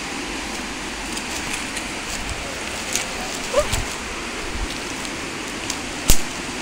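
Steady rush of flowing water, with scattered light clicks, a brief rising squeak about halfway through, and one sharp click near the end.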